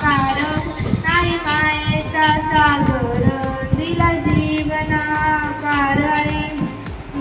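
A schoolgirl singing solo into a handheld microphone, a melodic song with long held notes.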